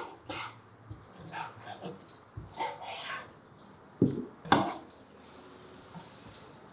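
A dog barks twice in quick succession about four seconds in, after a few quieter short sounds.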